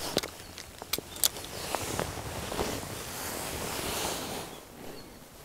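A few sharp clicks and knocks of handling noise, followed by a brief rushing noise that fades.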